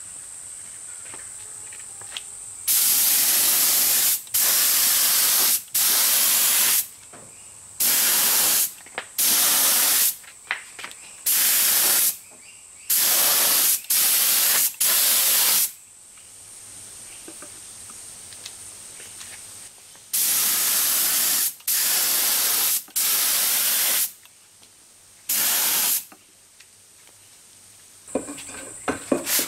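Compressed-air gravity-feed spray gun spraying wood finish in about a dozen short bursts of hiss, with longer pauses after the first nine bursts and near the end. A faint steady high tone sits in the gaps between bursts.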